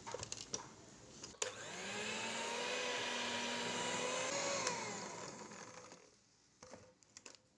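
Electric hand mixer with twin wire beaters creaming margarine, butter and powdered sugar in a ceramic bowl. The motor starts with a click about a second and a half in and runs with a steady whine, then winds down with falling pitch about five seconds in. There are a few light clicks before and after.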